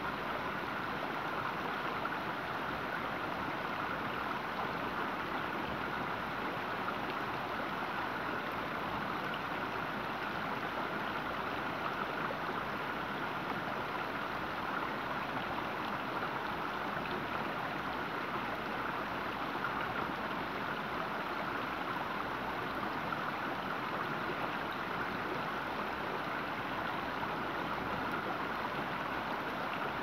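Shallow creek running over a stony riffle, a steady, unbroken babble of water.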